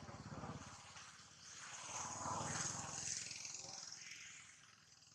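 A macaque's low, pulsing grunts in two drawn-out stretches, the second and louder one about two seconds in.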